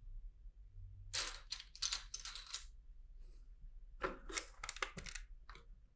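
Loose plastic LEGO bricks clicking and clattering against each other as hands sort through a pile, in two bursts of quick clicks, each lasting about a second.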